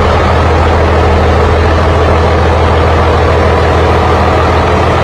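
Komatsu S6D140E-5 six-cylinder turbo diesel engine running steadily on a test stand after a rebuild, with a deep, even hum and no change in speed.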